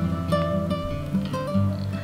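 Background music on acoustic guitar: plucked notes ringing one after another, slowly getting quieter.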